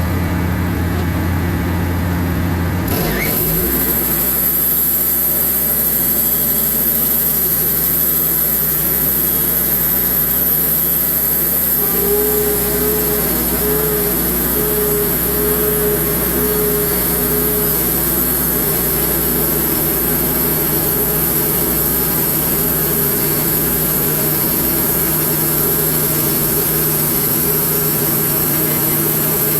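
Wood-Mizer LX150 bandsaw mill running steadily while sawing slabs from a large red oak log. The note of its engine shifts about three seconds in.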